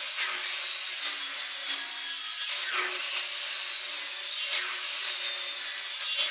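Kobalt sliding compound miter saw running, its tilted blade cutting a 45-degree bevel along the edge of a wooden board.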